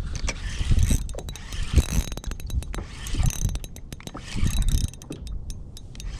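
Fishing reel ratcheting in rapid runs of sharp clicks from about a second in, over a low rumble.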